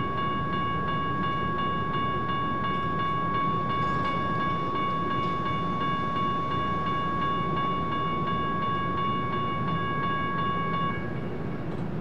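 Level-crossing signal bell ringing continuously in rapid strokes, its ringing stopping about eleven seconds in, over the low rumble of rail traffic.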